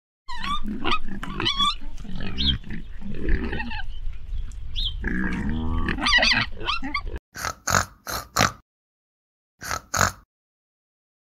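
Pigs grunting and squealing without a break for about seven seconds, then six short oinks: four in quick succession and two more near the end.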